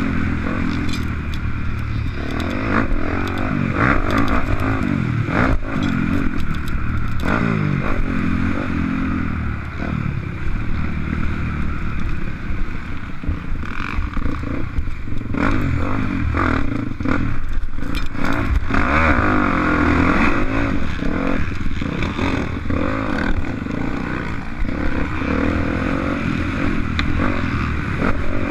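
Motocross bike engine at racing speed, its revs climbing and dropping again and again, with clattering and scraping over the top.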